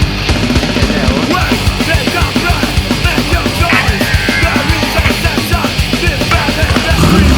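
Loud, fast rock music with a driving drum beat: hard, punk-style intro music.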